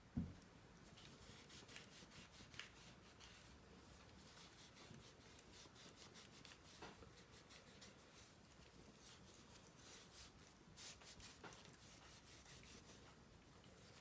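Faint, scratchy strokes of a polishing cloth rubbing over a sonic screwdriver prop, with a soft thump right at the start.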